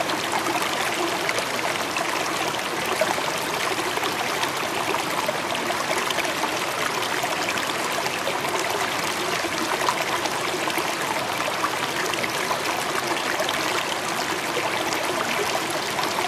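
Running water from a stream, a steady, unbroken rush with no pauses or changes.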